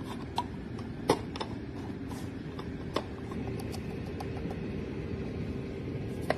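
A few sharp plastic clicks and taps from pet talking buttons being pressed and knocked, the loudest about a second in, over steady low room noise.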